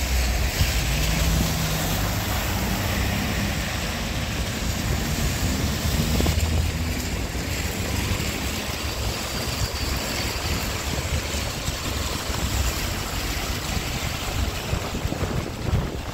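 Cars driving by on a wet street: tyres hissing through water on the road and engines running, with one car passing close at the start and another swell around six seconds in.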